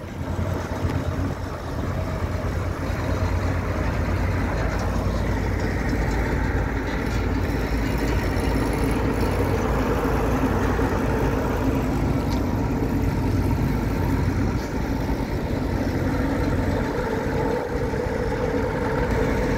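Combine harvester engine idling steadily.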